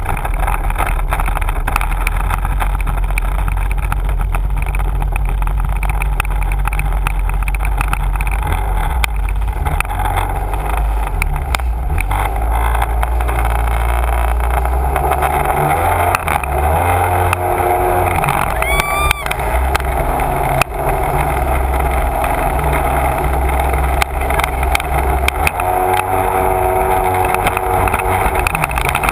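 Sea-Doo personal watercraft engine running with water rushing past the hull, the engine note shifting a few times as the throttle is worked, and the craft up to speed with spray by the end.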